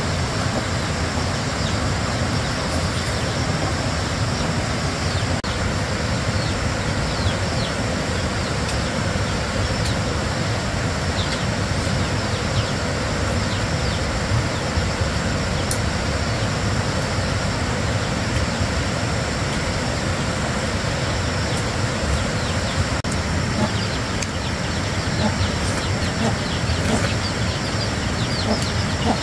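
Steady rushing background noise with birds chirping faintly now and then, more of them near the end.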